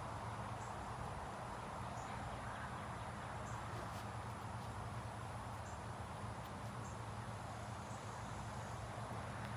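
Steady outdoor background ambience: a low hum under an even noise haze, with faint, short, high-pitched chirps every second or so.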